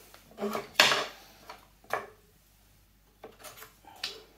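Thin wooden crate divider being pulled out from between glass wine bottles, knocking and clinking against the bottles and the wooden crate. There is a cluster of sharp knocks about a second in, another at two seconds, and a few lighter ones near the end.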